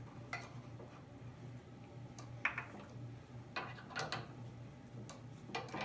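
Scattered light clicks and knocks of metal parts being handled at a drill press, with a steady low hum underneath.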